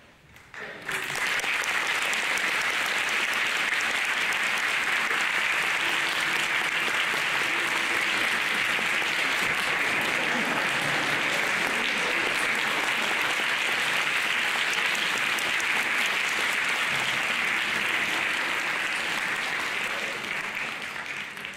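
Audience applauding, starting about a second in, holding steady and fading out near the end.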